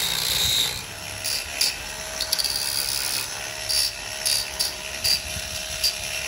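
A steady hiss that stops under a second in, then a string of about eight short, sharp clicks and rattles as a handheld battery spot-welding pen with copper electrode tips and braided cables is handled and turned.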